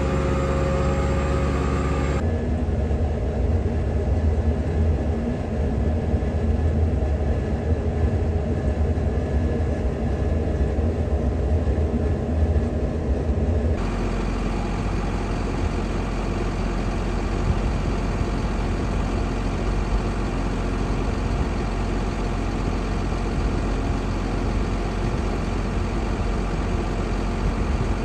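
Heavy diesel farm machinery running steadily at potato harvest: tractors hauling trailers, heard largely from inside a cab. The engine sound changes abruptly about two seconds in and again halfway through.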